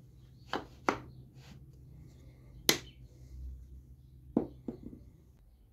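About half a dozen sharp knocks and clicks of wooden pieces being handled and set down on a workbench, the loudest a little under three seconds in, over a faint low hum.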